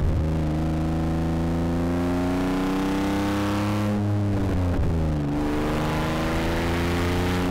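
Rally car engine under hard acceleration, its pitch climbing steadily through each gear and dropping sharply at upshifts, one right at the start and another about two-thirds of the way through.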